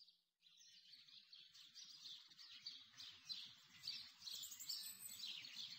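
Faint birds chirping, many short calls overlapping throughout, over a soft background hiss.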